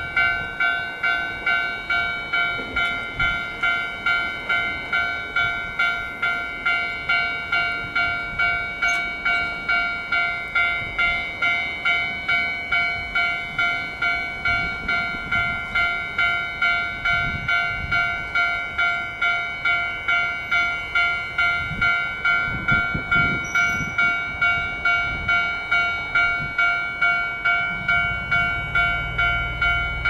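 Japanese railway level-crossing warning bell ringing, an electronic ding repeating evenly about one and a half to two times a second. A low rumble comes in near the end.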